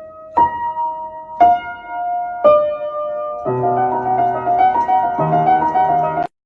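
Background piano music: single ringing notes struck about once a second, then fuller chords over a bass line from about halfway through. The music cuts out briefly near the end.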